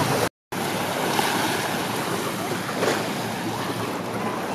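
Steady sea surf and wind noise on the microphone, cut to silence for a moment just after the start where one outdoor recording gives way to the next.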